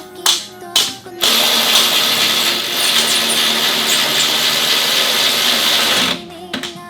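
A handheld power tool runs steadily for about five seconds, starting a second in and stopping suddenly, while coilover nuts and bolts are run down. Background music can be heard before and after it.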